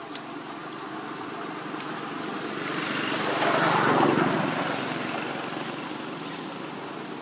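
A vehicle passing by, its noise swelling to a peak about four seconds in and then fading.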